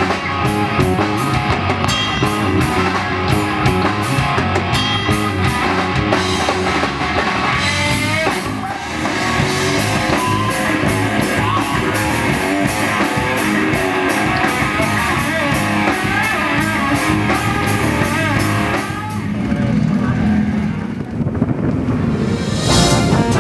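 Rock music with electric guitar and a drum kit. The steady drum beat drops back about a third of the way in, leaving melodic guitar lines, and a new loud section starts near the end.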